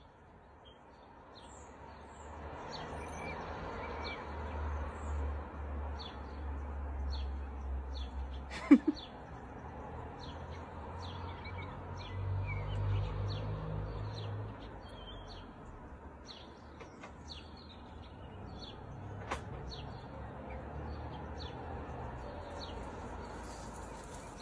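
Small birds chirping in short, repeated calls over a low steady rumble, with two sharp clicks, one about a third of the way in and one near the three-quarter mark.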